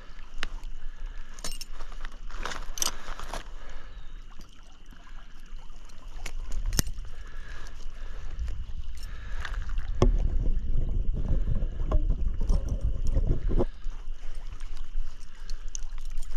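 Stream water sloshing and splashing, with scattered light clicks and metallic rattles of fishing tackle, while a hooked brook trout is played on the line. A heavier low rumble comes from about ten seconds in and stops sharply a few seconds later.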